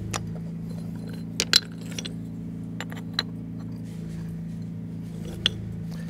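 Small cobble stones clicking against each other and the flagstone as they are set by hand, a few sharp clinks, the loudest a quick pair about a second and a half in. A steady low hum runs underneath.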